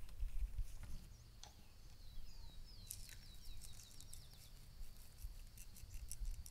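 A small songbird sings a quick run of about ten falling high notes, starting about two seconds in, over a low rumble with a few soft knocks.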